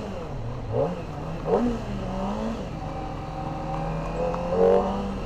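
Kawasaki ZX-25R's 250 cc inline-four engine through its stock factory exhaust, revved in three quick throttle blips in the first two seconds. It then runs at a steady engine speed, with another brief swell in revs near the end.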